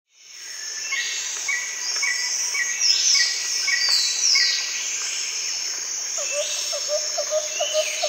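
Tropical rainforest ambience fading in: a steady high chorus of insects with swells that rise and fall, over a short chirping call repeated about twice a second. From about six seconds in, a lower call joins, repeating about three times a second.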